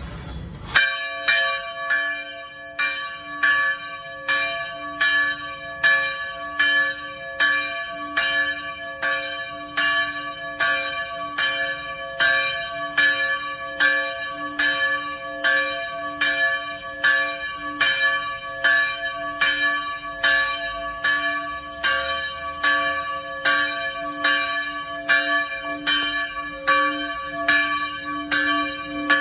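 Church bell tolling, struck in a steady, quick rhythm of roughly one and a half strikes a second, starting just under a second in, each strike ringing on into the next.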